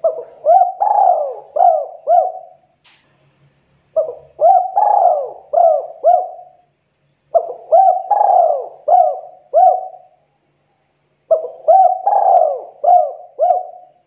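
Spotted dove cooing its song in four phrases a few seconds apart, each made of about five low, arching coos.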